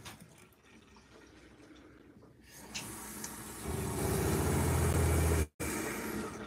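Water running from a faucet into a stainless steel sink, supplied by a 12-volt Seaflo diaphragm water pump with an accumulator tank. Nearly four seconds in, the pump starts with a steady low hum, and it cuts off abruptly at about five and a half seconds.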